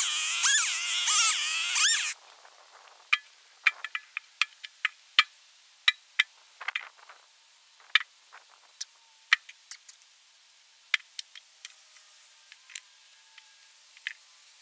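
Two-stroke chainsaw revving as it cuts through a log, its pitch rising and falling, then stopping abruptly about two seconds in. After that come scattered sharp wooden knocks as cut log rounds are tossed into a tractor's front loader bucket.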